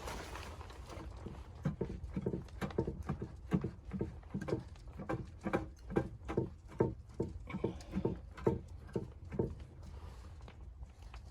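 Footsteps crunching through snow at a walking pace, about two steps a second, starting a couple of seconds in and stopping near the end, over a steady low rumble.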